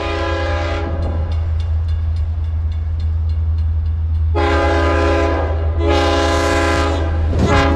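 Tri-Rail train's multi-chime horn blowing as it approaches: the tail of one blast, then two long blasts and a short one, the long-long-short opening of the signal sounded for a grade crossing. A steady low rumble runs underneath.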